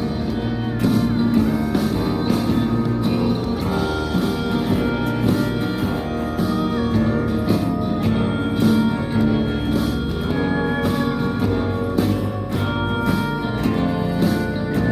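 Instrumental passage of a country-rock song: guitar over bass and a steady drum beat, with no singing.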